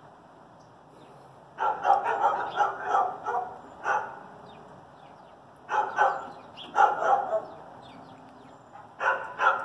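A dog barking in three runs of several quick barks, with short quiet gaps between them.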